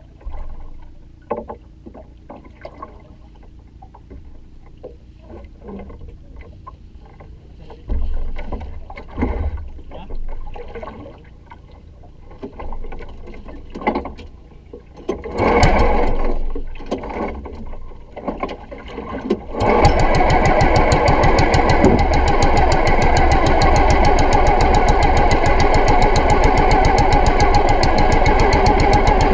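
Scattered knocks and thumps, then about two-thirds of the way in a small boat engine starts abruptly and runs steadily with a fast, even beat.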